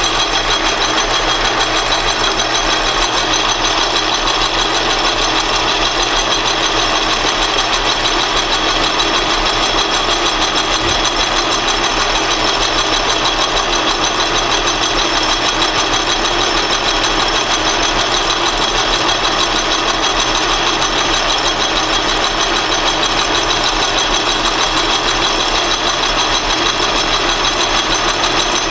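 Metal lathe running while a carbide-insert boring bar takes a light finishing cut inside a bore in an aluminium part. The machine noise is steady throughout, with several constant high whines over it.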